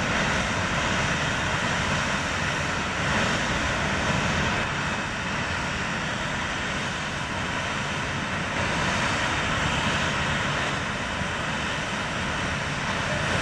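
Boeing 737 airliner's twin turbofan engines running at taxi power as the jet rolls slowly past, a steady, even rushing jet noise.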